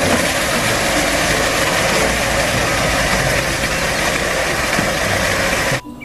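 Heavy diesel machinery running steadily as an excavator loads a concrete mixer truck, the engines of truck and excavator together. It cuts off abruptly shortly before the end.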